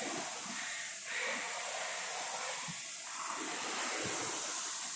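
Air-resistance fan flywheel of a Concept2 rowing machine whirring as it is rowed hard, a steady rushing hiss.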